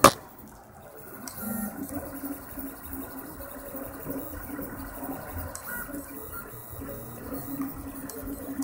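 Felix 2.0 FDM 3D printer running a print job, its stepper motors whirring in short, shifting tones as the print head moves back and forth. A sharp knock sounds right at the start.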